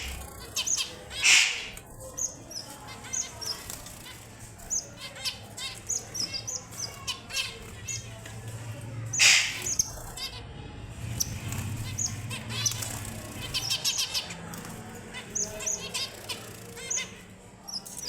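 Red avadavats (strawberry finches) giving many short, high chirps and quick twittering runs. Two brief, loud noisy bursts stand out, about a second in and about nine seconds in.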